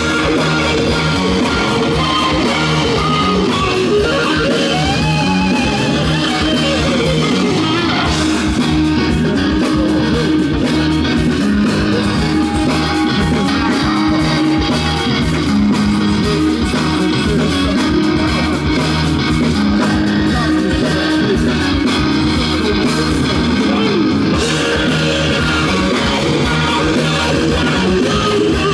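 Live rock band playing loud through a PA: two electric guitars over bass and drums, with a bending, wavering guitar line about four seconds in.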